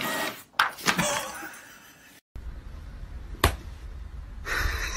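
A few sharp knocks and thumps in the first second, then a single sharp click about three and a half seconds in.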